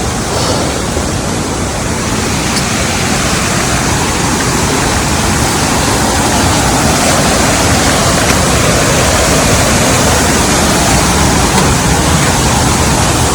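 Falling water rushing steadily and loudly, as from a small waterfall or a fast cascade close by.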